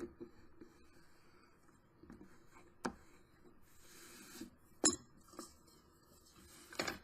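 A bone folder rubbing along a ruler to work a crease, with a few sharp clicks and knocks of the ruler and tools against the work table, the loudest about five seconds in.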